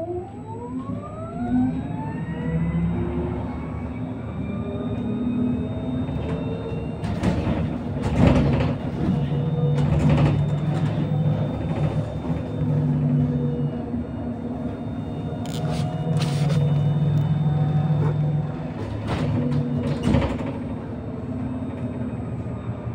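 Electric bus's traction motor whining in a rising glide as the bus pulls away, levelling off after about three seconds. It then runs with a steady high whine and a low drone under road noise, with several sharp knocks and rattles from about a third of the way in until near the end.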